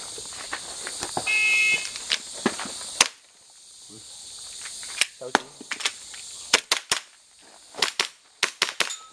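Airsoft pistol firing: sharp pops, one about three seconds in, then quick pairs and strings of shots through the second half.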